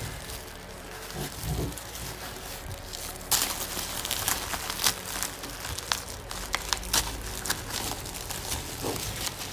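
Packaging being handled and opened: crinkling and rustling with sharp clicks and crackles, starting about three seconds in and going on irregularly.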